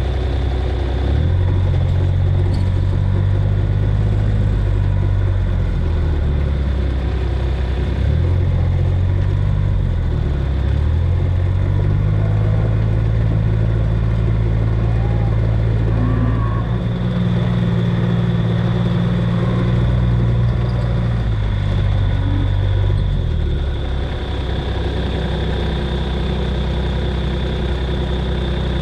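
A motor vehicle engine running at low speed, its pitch stepping up and down every few seconds as the throttle changes, with a steady high whine over it.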